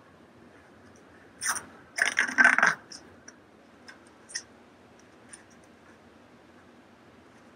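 Rasping, scraping handling noise as the end of a rolled-gauze (Kerlix) wrap around a pillow splint is secured. A short burst comes about a second and a half in and a louder, longer one runs from two to nearly three seconds in, followed by a few light clicks.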